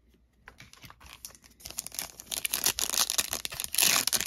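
Foil wrapper of a Panini Prizm football card pack being crinkled and torn open by hand. It starts faint with a few light clicks and builds to dense crinkling, loudest near the end.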